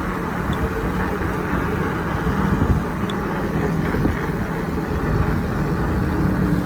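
Steady city street traffic: a continuous wash of car and engine noise with a low hum.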